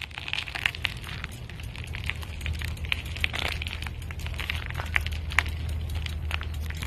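Outdoor handheld phone recording: a steady low rumble with many irregular crackles and clicks over it.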